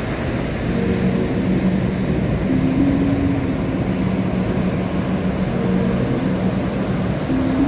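Steady rushing of ocean surf with soft background music of long held notes that change pitch every second or two.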